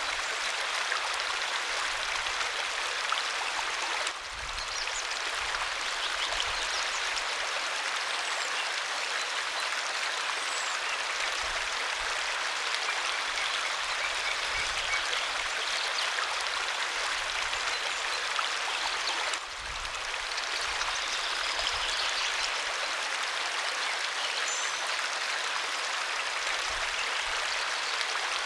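Waterfall, water falling and rushing in a steady, dense roar of white noise, dipping briefly twice.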